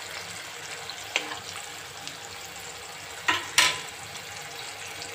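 Onion paste and ground spices frying in oil in a nonstick pan: a steady sizzle, with a light tap about a second in and two sharp knocks in quick succession a little past the middle.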